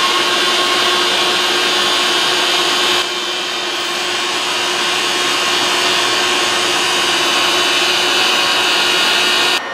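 Steady cabin noise inside an electric railcar: a constant hiss over a low steady hum. It drops slightly about three seconds in and cuts off sharply near the end.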